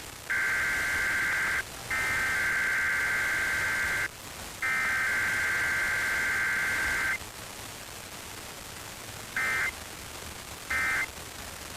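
EAS/SAME digital data bursts over steady radio static. Three long warbling two-tone header bursts play, then after a short pause come two brief end-of-message bursts a little over a second apart. No attention tone or voice comes between them, as in a data-only Required Weekly Test.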